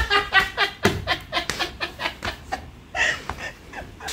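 A person laughing: a quick run of "ha" bursts in the first second, then laughter that breaks up and flares again about three seconds in.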